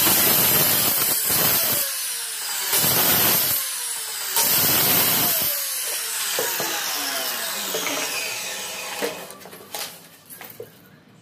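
Handheld electric circular saw cutting through 18 mm plywood in several bursts, each with a falling whine as the motor slows. A few light knocks near the end.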